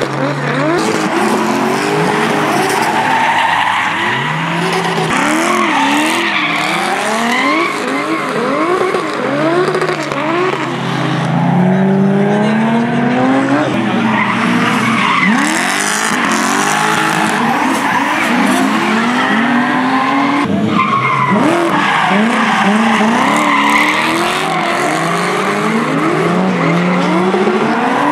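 Several drift cars on track, their engines revving up and down over and over, with the pitches overlapping, while their tyres squeal and skid.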